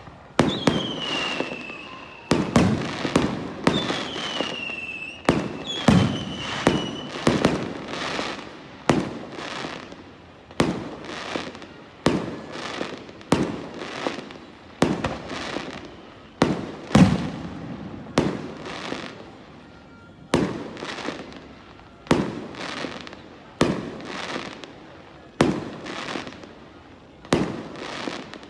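Fireworks display with bursts going off in a steady run of about one bang a second, each followed by an echoing tail. In the first few seconds three falling whistles sound among the bangs.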